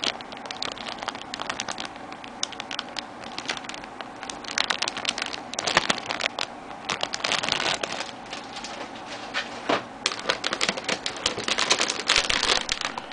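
Plastic model-kit runners in their plastic bags being handled: dense crinkling of the bags with many light clicks and clatters of the plastic sprues.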